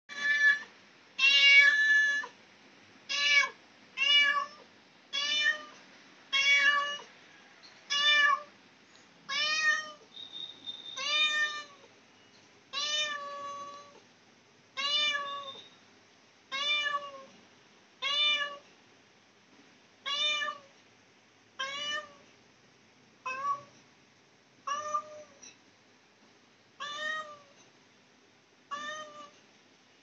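Domestic cat meowing over and over: about twenty short meows, each rising then falling in pitch, about one a second at first and spacing out to about one every two seconds. The loudest meows come in the first two seconds.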